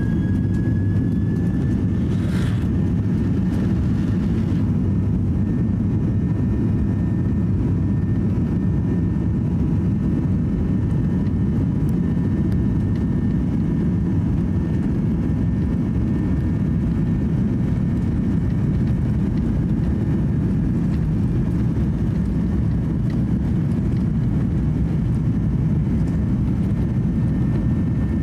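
Cabin noise of a Boeing 737-800 rolling down the runway for takeoff: a steady deep roar of its CFM56 turbofans at high thrust mixed with runway rumble, with a faint high engine whine holding one pitch after rising just at the start.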